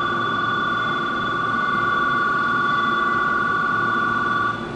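Station platform departure bell ringing steadily on two high tones, cutting off suddenly near the end.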